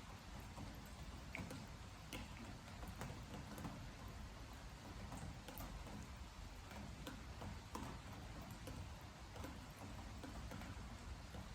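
Rain falling, with irregular drips tapping on a wooden deck every so often.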